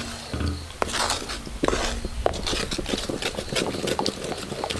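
Wooden stirrer working through jaggery melting in a little water in a brass uruli, knocking and scraping against the metal sides in many irregular clicks.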